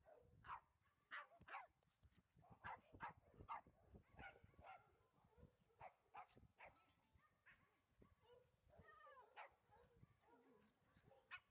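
Faint dog barking: short, sharp barks repeating about twice a second, with a brief lull past the middle.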